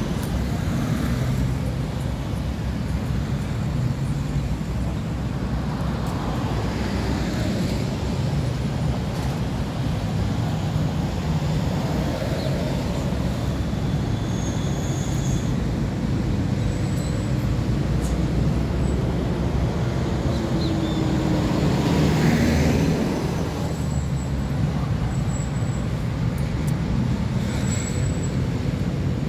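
Steady motorway traffic noise, a continuous rumble of passing cars and buses. One vehicle passes close, loudest about three-quarters of the way through.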